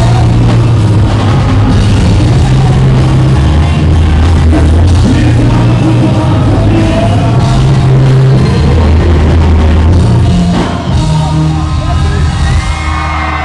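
Live hip-hop concert sound: a loud, bass-heavy backing track with vocals over it, heard from within the crowd. About ten and a half seconds in, the music drops back and crowd shouts and whoops come through.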